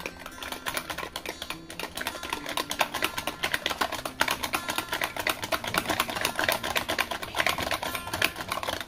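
Die-cast toy car rattling and clattering inside its small cardboard box as the box is shaken, a fast irregular run of clicks.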